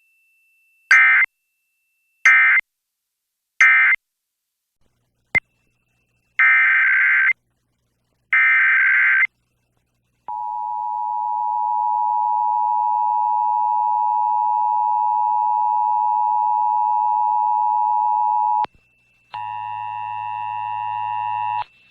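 Emergency Alert System test tones heard off a broadcast station: a string of short, harsh digital data bursts, then the two-tone EAS attention signal held steady for about eight seconds and cut off sharply, then about two seconds of a denser buzzing multi-tone signal.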